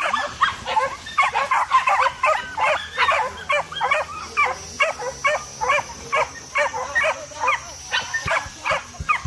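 Hunting dogs yelping in a long, rapid run of short high cries, overlapping at first and then settling to about two or three a second.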